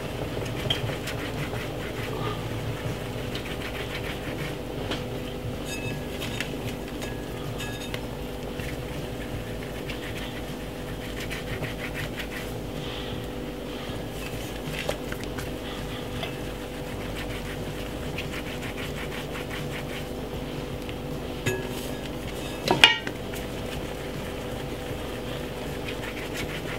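Hand-work in a kitchen: Caribbean dumpling dough being shaped and the dumplings dropped into a pot of simmering soup, heard as faint taps and clicks over a steady hum, with one sharp clatter about 23 seconds in.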